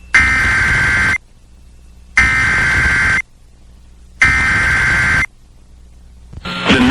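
Emergency Alert System SAME header: three identical one-second bursts of buzzy two-tone digital data, about two seconds apart, opening a new EAS alert, with a faint low hum in the gaps. A voice starts just at the end.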